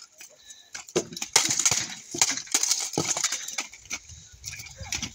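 Steel plate armour clanking and metal weapons striking armour during armoured full-contact sparring: after about a second of near quiet, a quick flurry of sharp metallic hits, then scattered lighter clanks.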